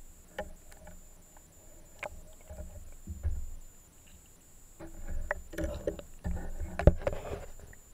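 Underwater knocks, clicks and low rumbles of a speargun being handled, picked up through the camera mounted on the gun as the diver works the shaft and bands; a sharp knock about seven seconds in is the loudest.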